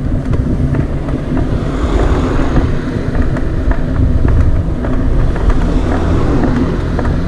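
Wind buffeting the microphone while riding a bicycle: a loud, steady low rumble with faint scattered ticks.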